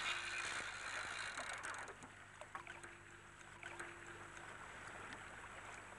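Faint water sounds around a small anchored boat over a steady low hum, with a few light splashes as a hooked plaice is drawn up thrashing at the surface.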